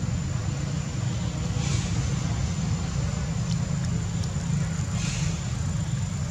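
Steady low rumble with a thin high-pitched tone over it and a brief soft hiss about every three seconds.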